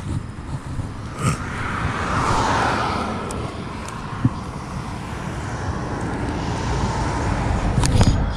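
Road traffic passing close by: a vehicle's noise swells and fades about two seconds in, and another builds up towards the end, over a steady low rumble. A few short sharp clicks stand out on top.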